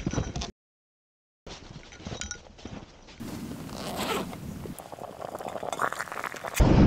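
Several short outdoor clips cut together: a burst of crunching, about a second of dead silence, then rasping, small clinks and scattered crackles. Near the end, a metal pot lid is lifted off a pot over a wood fire burning in a small folding camp stove.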